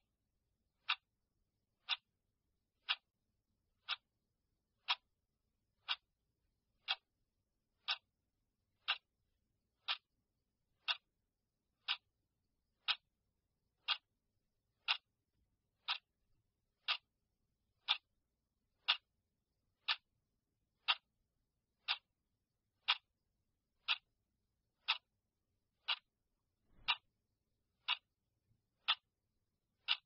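Clock ticking steadily, one short tick each second.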